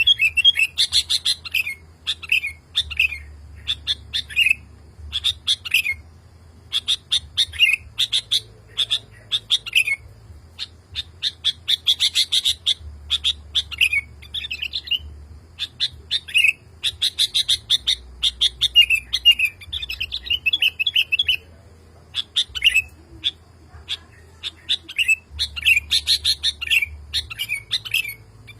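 Male sooty-headed bulbul singing persistently to call a female: run after run of quick, chirping phrases that rise and fall, separated by short pauses.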